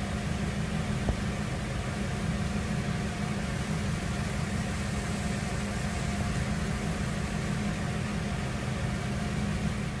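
Generator engine running steadily, an even low hum with no change in speed.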